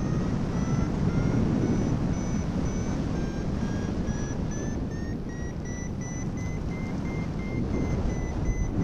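Paragliding variometer beeping in short repeated beeps, about two a second, their pitch rising over the first few seconds and then holding steady: the tone of a glider climbing in lift. Wind rumbles on the microphone underneath.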